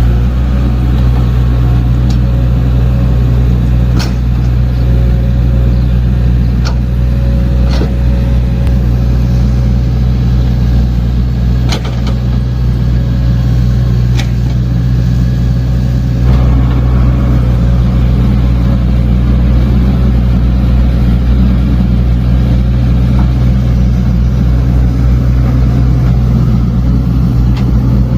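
Heavy diesel earthmoving machine running steadily under work, with sharp metallic knocks now and then; the engine sound brightens a little just past halfway.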